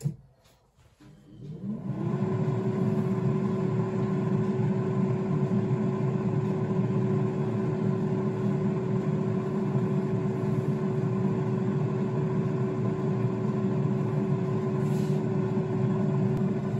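Cosori basket air fryer starting up again once its drawer is pushed back in: its fan spins up about two seconds in with a rising hum, then runs with a steady whir.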